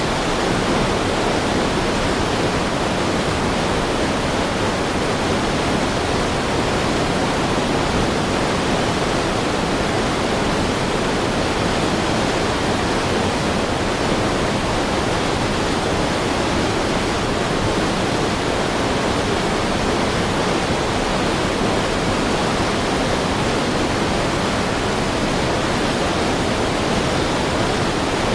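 Heavy river flowing: a steady, unbroken rush of fast water.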